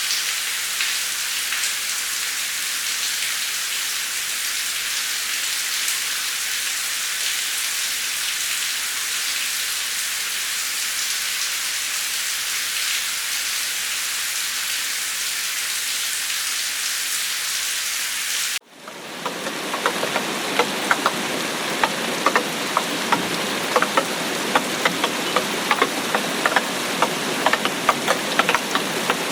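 Steady rain hiss. About eighteen seconds in it cuts abruptly to a fuller, closer rain in which many separate drops land as sharp ticks.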